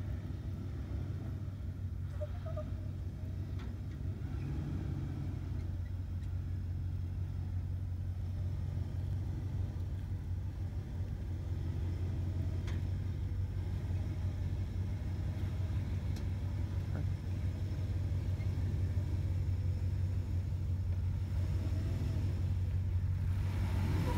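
Off-road 4x4's engine running with a steady low rumble as it crawls up a steep rock slope, growing slowly louder as it gets closer.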